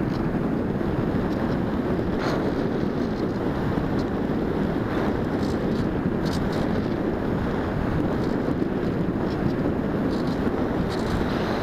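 Steady rushing wind noise on the onboard camera's microphone of a Bixler 1.1 RC plane in flight, with a few faint ticks.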